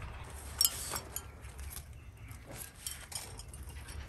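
Light clinks and knocks of objects being handled, the sharpest about half a second in, over a low steady rumble.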